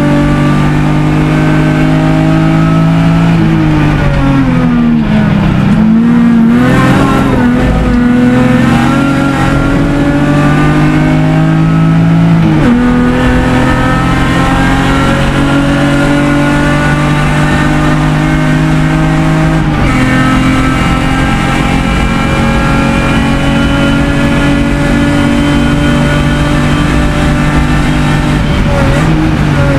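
BMW 325is race car's straight-six engine under hard driving, heard from inside the cabin. The revs fall and waver as it slows for a corner about four to seven seconds in, then climb steadily, with gear changes about thirteen and twenty seconds in, and drop again briefly near the end.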